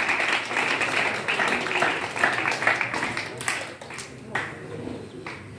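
Audience of students clapping for a correct quiz answer. The applause dies away about three and a half seconds in, leaving a few last scattered claps.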